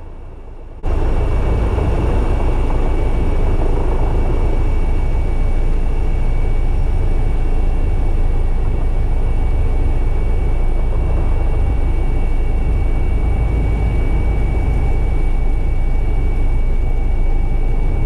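Twin-turbine helicopter climbing after takeoff, heard from inside the cockpit. A steady, loud rotor rumble with a fast beat and a high, steady turbine whine cuts in suddenly about a second in.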